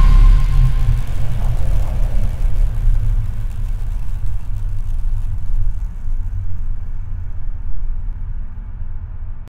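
A deep, low rumble with little higher sound; what treble there is fades away as it goes on, and it cuts off suddenly at the end.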